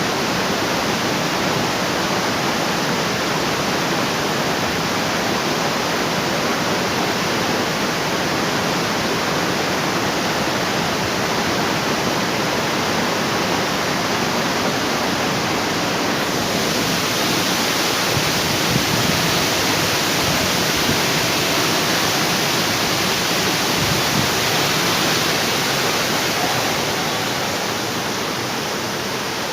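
Waterfall: a steady rush of falling water that turns brighter and hissier about halfway through, easing slightly near the end.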